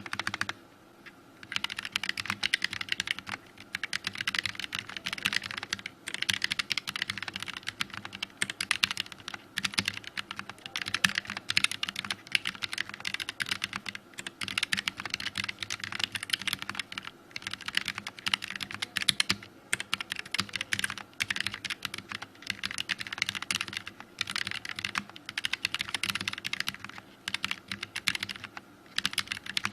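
Typing on a Keychron K3 Pro low-profile mechanical keyboard: quick, continuous keystroke clatter with a few short pauses.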